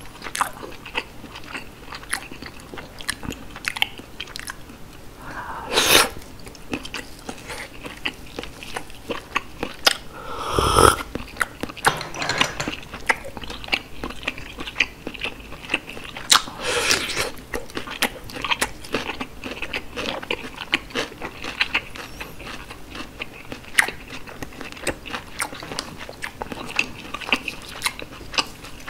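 Close-miked chewing of steamed sea snail (whelk) meat: a steady run of small wet clicks and smacks from the mouth, with a few louder, longer mouth sounds spaced through it.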